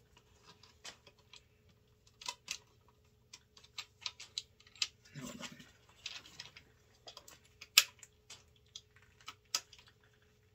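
Scattered light clicks and taps of hands handling and fitting parts on an AR-15 rifle around its sling mount and handguard, the sharpest click about three-quarters of the way through.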